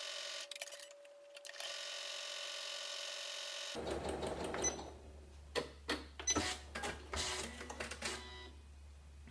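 Janome MC9900 sewing machine stitching a wide zigzag through layered felt, its motor running at an even speed with a brief dip about half a second in. It stops a little under four seconds in, followed by clicks and rustling as the felt is handled and pulled out from under the presser foot.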